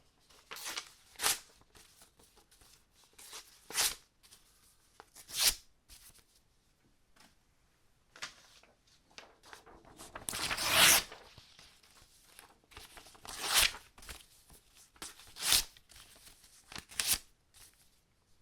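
Several sheets of paper being torn by hand: a series of short, crisp rips with pauses between, and one longer, louder tear about ten seconds in.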